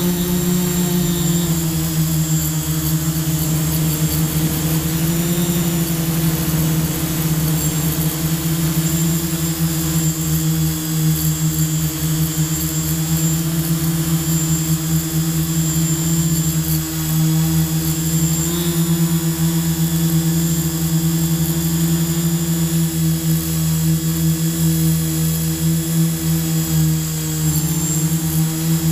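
Quadcopter drone's electric motors and propellers humming steadily, heard from the onboard GoPro, the pitch wavering a little as the throttle changes.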